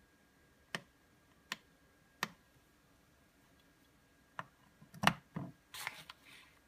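Three sharp plastic clicks about three-quarters of a second apart from a Floureon jump starter power bank being handled, then a charger plug knocked and pushed into the unit's DC input jack with a loud click, followed by a brief rattle of the cable.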